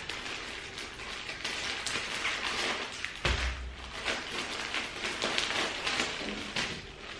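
Clear plastic bag wrapped around a bundle of baby vests crinkling in the hands as it is handled and opened, with a dull thump about three seconds in.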